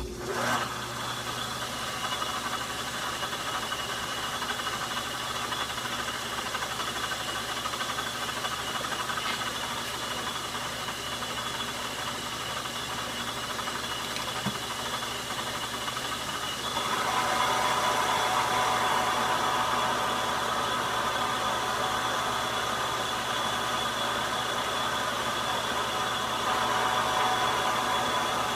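Logan metal lathe switched on and running steadily with a mechanical whine. It gets louder about 17 seconds in and again near the end, as when the tool is cutting the steel part.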